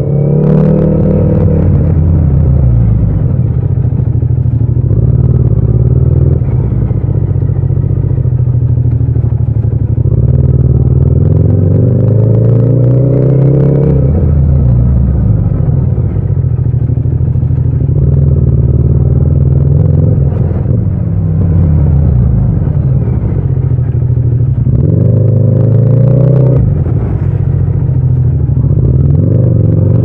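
Yamaha MT-07's 689 cc parallel-twin engine running while riding at low city speed, recorded without wind noise. The engine note climbs as the throttle opens a few times, near the start, around the middle and near the end, and drops back between.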